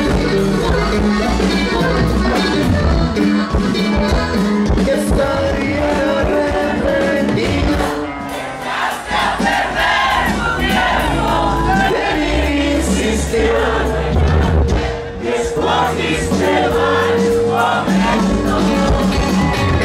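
A live norteño band playing loudly, with a singer, and a crowd's voices mixed in with the music.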